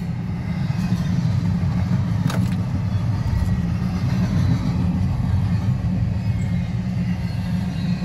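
CSX double-stack intermodal freight cars rolling past close by, heard from inside a car: a steady low rumble of wheels on rail, with one sharp clank about two and a half seconds in.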